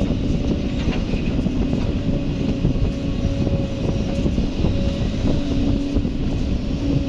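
Heavy diesel engine of a Kobelco SK excavator running steadily: a dense low rumble with a faint steady whine above it.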